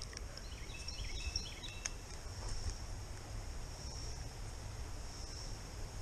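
Steady high insect buzzing of crickets, with a few faint chirps about a second in and a single sharp click near two seconds.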